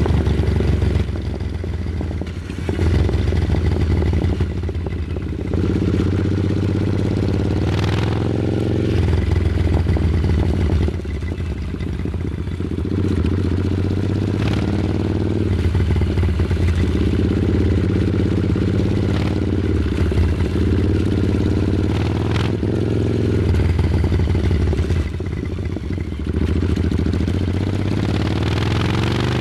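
Royal Enfield Super Meteor 650's 648 cc parallel-twin engine running, its pitch rising several times as it is revved or accelerated, with the loudness stepping up and down between.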